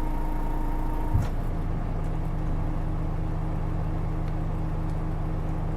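Dual-mode vehicle (road-rail minibus) engine idling steadily after its change to rail mode. About a second in, a single low clunk cuts off a faint steady tone, and the idle hum settles at a slightly different pitch afterwards.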